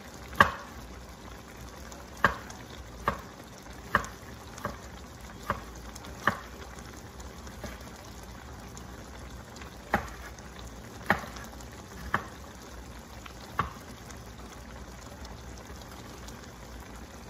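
Pot of goat and vegetable stew bubbling on the stove, with about a dozen sharp pops at uneven intervals as thick bubbles burst at the surface.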